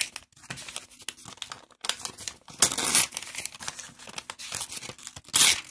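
Paper pages being torn off a tear-off wall calendar: rustling and ripping in several short bursts, the loudest about two and a half seconds in and again near the end.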